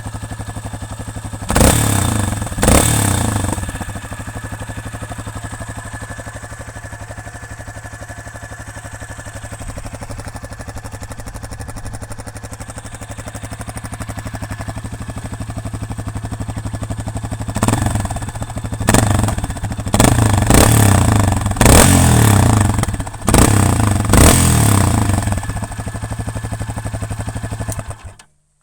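Yamaha Serow 250's air-cooled single-cylinder four-stroke engine running through a Delta Barrel 4S silencer: steady idle with two short throttle blips near the start and a run of about six revs in the last third, then the sound cuts off suddenly just before the end. The hollow 'pako-pako' echo from the silencer's tailpiece is still there but much reduced by glass wool packed into the tailpiece gap.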